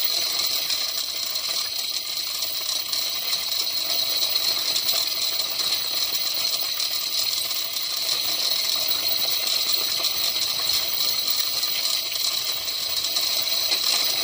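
Steel hand chain of a chain block clinking and rattling steadily as it is pulled hand over hand, lowering a submersible borewell pump and its pipe column down the bore.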